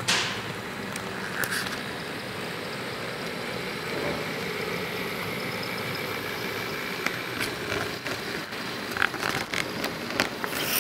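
HO scale model train, a diesel locomotive pulling autorack cars, running past on curved track: a steady rumble of wheels on rail and motor hum. There is a sharp click at the very start and a few lighter clicks scattered through.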